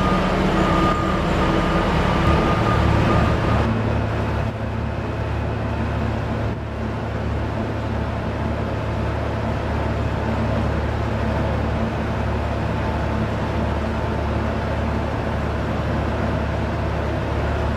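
Roadtec RX500 cold planer running under load: a steady low diesel drone with the milling drum grinding up asphalt and millings pouring off the conveyor. A reversing alarm beeps repeatedly for the first few seconds and stops about four seconds in.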